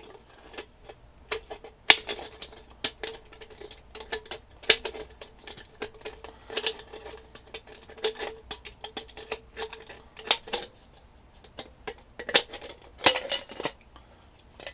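A blade scoring around the top of an aluminum soda can, rubbing and clicking irregularly against the thin metal as the can is turned, to cut the top out.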